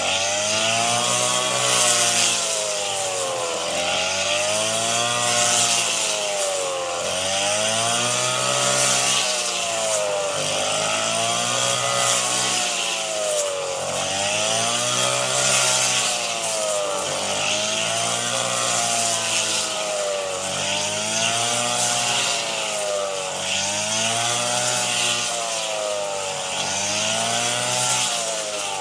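Engine of a rice-harvesting machine revving up and falling back in a steady cycle about every two seconds, with a hiss that swells along with each rise.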